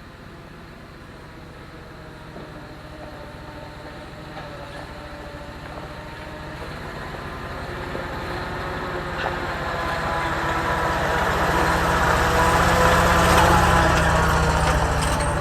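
GMC C7000 dump truck's engine running, growing steadily louder for about twelve seconds, then easing off slightly near the end.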